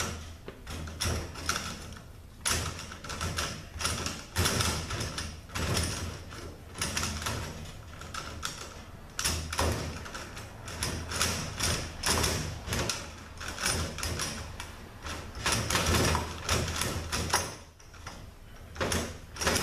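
Irregular metallic clicking and clattering from a ZF 5HP24 automatic transmission's A clutch hub being turned and worked down into the clutch drum until it seats.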